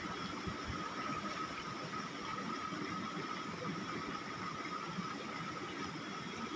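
Fast-flowing river water running around rocks: a steady, even rushing noise.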